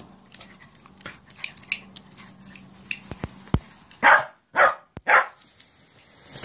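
A corgi barking three times in quick succession, after a few faint clicks.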